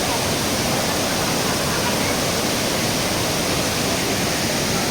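Kravica waterfalls: a steady, loud rush of falling water.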